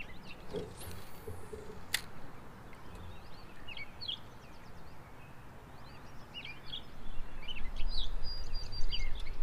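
Small birds chirping, many short calls scattered through a steady low outdoor background. There is one sharp click about two seconds in, and a low rumble grows louder near the end.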